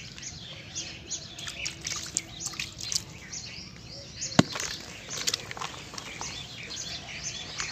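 Soft cement being crushed, crumbling in short crackles with one sharp snap about four and a half seconds in, while birds chirp in the background.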